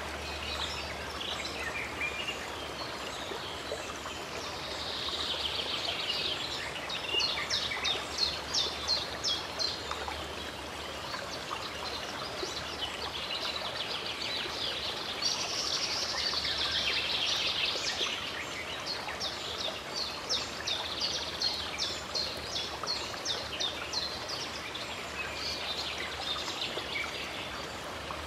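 Steady rush of running stream water with birds singing over it, in several bouts of fast, repeated chirping notes.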